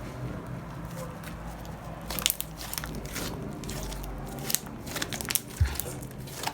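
Clear slime being stirred and mixed, giving off sticky clicks and crackling pops, a scattered run of sharp clicks from about two seconds in.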